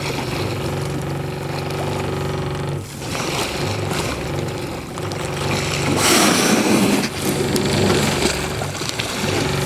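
Boat engine idling steadily. About six seconds in there is a loud whoosh lasting about a second.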